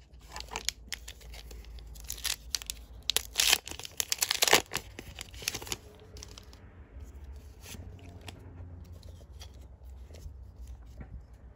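Foil Pokémon booster pack wrapper torn open by hand: a run of crinkly ripping and crackling over several seconds, loudest in the middle, then fading to quiet handling of the trading cards.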